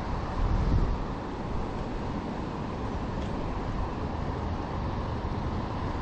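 Steady rushing noise of wind on the microphone and flowing river water, swelling briefly about half a second in.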